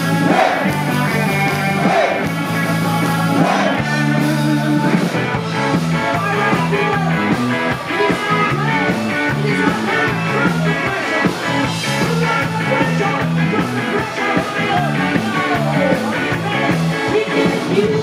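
2 Tone ska band playing live through a PA: electric guitar, bass guitar and drums on a steady beat, with sung vocals in places.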